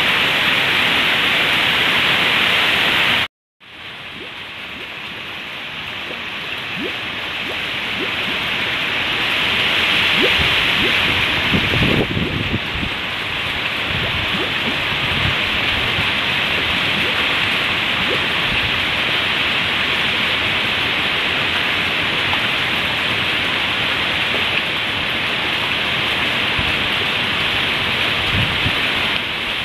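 Heavy tropical rain pouring down on lawn and trees as a dense, steady hiss. About three seconds in the sound cuts out for a moment, then fades back in and builds to a steady downpour over the next several seconds.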